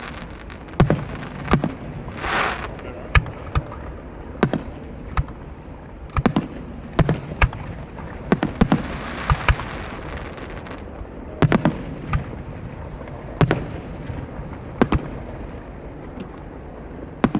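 Aerial fireworks shells bursting: a string of sharp booms at irregular intervals, often in quick pairs or clusters, with a short hiss about two seconds in.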